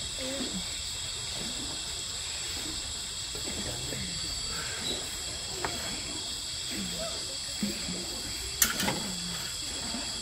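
Night insects chirring steadily in several high, unbroken tones, with a single sharp knock about eight and a half seconds in.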